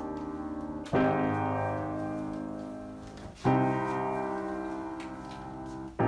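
Slow piano-toned keyboard chords opening a song: a new chord struck about every two and a half seconds, three times, each left to ring and fade.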